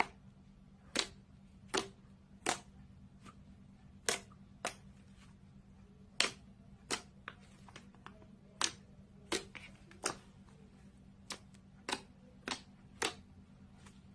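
Slime being pressed and squeezed, giving off over a dozen short, sharp pops at irregular intervals, roughly one a second, over a faint steady low hum.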